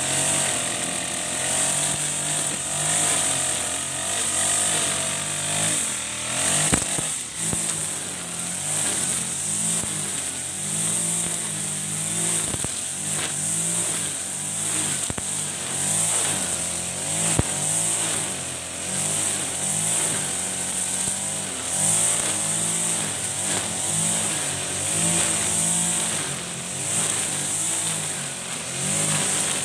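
Backpack brush cutter with an Ogawa GX35 four-stroke engine running at cutting speed, spinning a 2.4 mm nylon line through tall grass; the engine pitch rises and falls every second or two as the head sweeps into the grass. A couple of sharp ticks come through, the loudest about a quarter of the way in.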